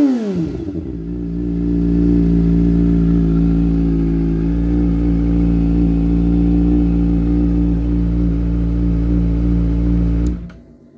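Kawasaki Ninja ZX-25R's 250 cc inline-four through an Austin Racing GP1R de-cat exhaust, dropping from a rev back to a steady idle. The sound cuts off sharply about ten seconds in.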